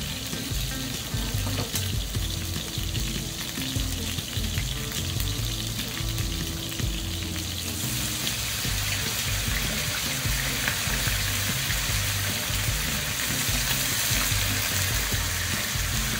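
Shrimp, sliced garlic and chili frying in olive oil in a pan, sizzling steadily. About halfway through, freshly boiled linguine goes into the pan and the sizzle turns louder and more hissing.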